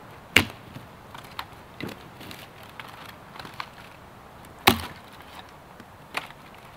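Dry dead branches snapping as they are broken by hand from a fallen log: two loud cracks, one about half a second in and one near the five-second mark, a smaller snap about six seconds in, and light crackling of twigs between.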